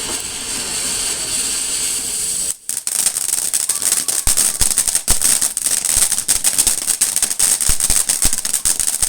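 Firework fountain spraying with a steady hiss, then, about two and a half seconds in, switching after a brief drop to a dense, rapid crackle that runs on.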